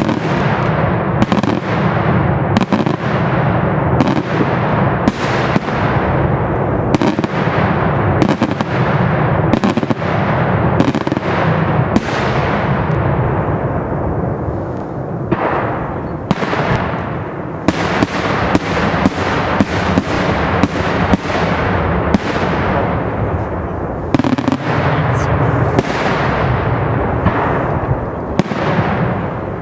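Daytime fireworks display: a continuous barrage of aerial shell bursts and firecracker crackle, with sharp loud bangs coming every second or less over a dense rumble. Near the end a short high falling whistle cuts through.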